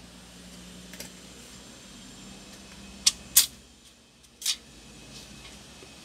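Sharp clicks and knocks from small hard parts being handled on an opened laptop: a faint click about a second in, two loud clicks in quick succession a little after three seconds, and a softer knock about a second later, over a faint steady hum.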